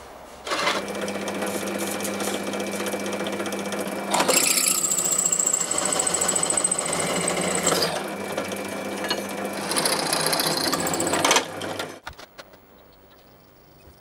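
A bench drill press running and its bit cutting into the rusted metal of an old cast-iron sad iron, drilling out a seized screw. The motor hums steadily, and a high whine joins in while the bit bites, from about four seconds to eleven seconds in. It all stops abruptly near the end.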